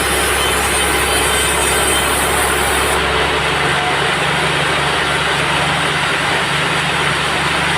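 Band sawmill running through a teak log, a loud steady machine noise with a high hiss. About three seconds in the hiss drops away, leaving the mill's lower running hum.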